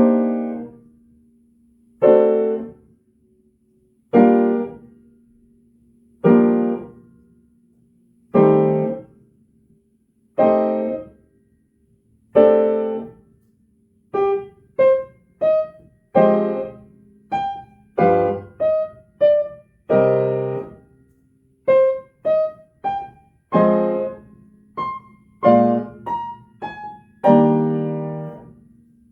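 Solo piano playing slow chords, one struck about every two seconds and left to ring and fade. About halfway through, a quicker line of single notes comes in between the chords.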